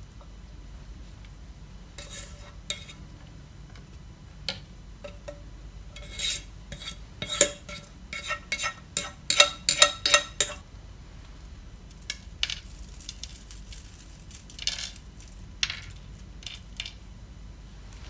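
A cooking utensil knocking and scraping against a pan as food is stirred and tossed, with a quick run of rapid clinks in the middle and scattered taps before and after.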